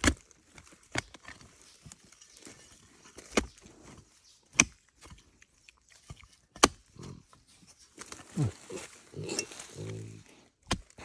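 Digging hoe chopping into soil around a bamboo shoot in sharp, irregular strikes, about six in all. A pig grunts several times near the end.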